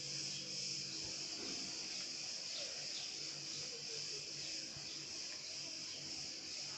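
Steady, high-pitched insect chorus droning without a break, with a faint low hum beneath.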